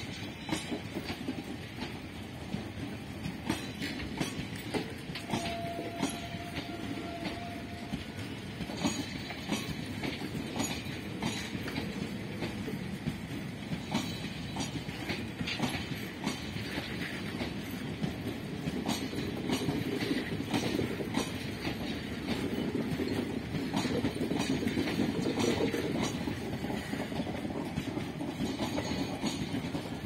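Indian Railways express passenger coaches rolling past on the adjacent track: a steady rumble with repeated clacking of the wheels over rail joints, growing somewhat louder in the second half. A brief faint steady tone sounds about five seconds in.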